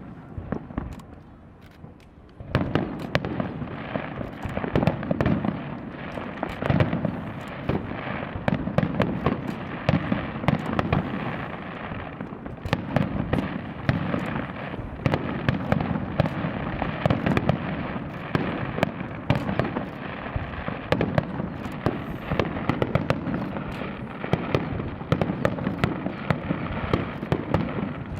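Aerial fireworks going off in a dense, rapid barrage of bangs and crackling. It starts about two and a half seconds in and keeps up without a break.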